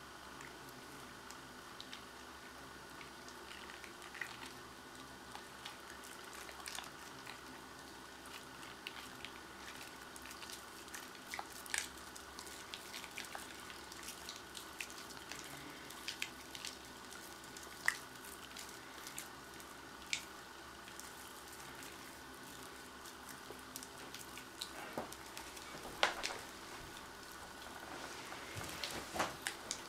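Wet hands being scrubbed: faint, irregular small clicks and ticks over a steady background hum. The clicks grow thicker towards the end, with the loudest about three-quarters of the way through.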